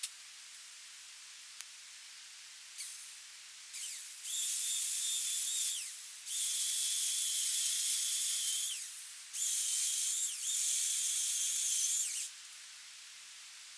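Chainsaw cutting through a wooden fence rail: a steady high whine with hiss in three runs of two to three seconds each, its pitch sagging as each run ends, after two short blips of the throttle.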